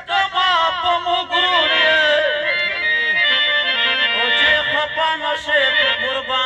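Live traditional Pashto folk music: an ornamented melody that wavers and slides in pitch, carried by a reed-instrument sound.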